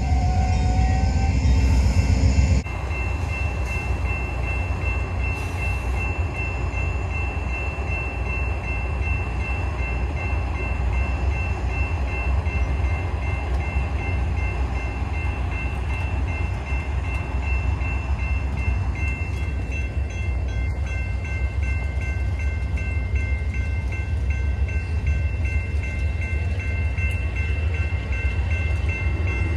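Amtrak Superliner passenger cars rolling past at speed, a steady rumble and rush of wheels on the rails, with a grade-crossing bell ringing steadily over it. The sound is a little louder for the first couple of seconds, then evens out.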